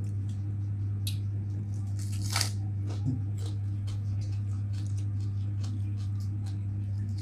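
Close-up chewing of raw spring onion and other raw vegetables: wet squishing and crisp crunches with scattered small clicks, one louder crunch about two seconds in. A steady low hum runs underneath.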